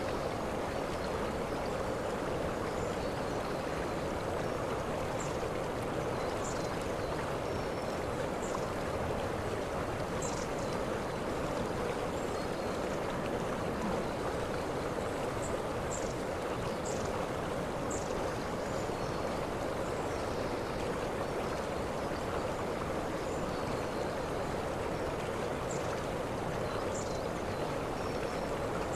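Waterfall water rushing in a steady, even roar, with short high chirps heard now and then.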